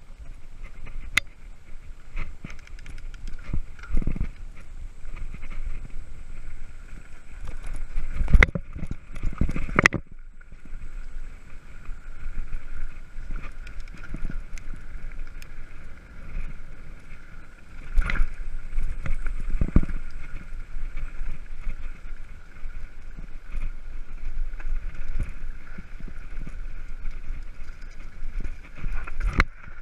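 Mountain bike riding down a dirt trail, heard from an action camera on the bike: a steady rumble of tyres and wind with knocks and rattles as the bike hits bumps, the hardest a little before and after ten seconds in and again near eighteen seconds.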